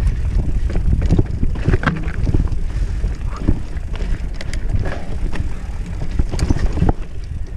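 Mountain bike riding fast over a rough dirt trail, recorded on a body-mounted action camera: wind buffets the microphone in a steady low rumble, with frequent clicks and rattles from the bike jolting over the ground.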